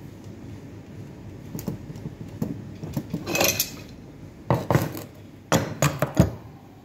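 Steel hand tools (a ratchet wrench and pliers) handled on a fitting and a bench: a short rasp about three seconds in, then about six sharp metal knocks and clinks as the wrenches are set down.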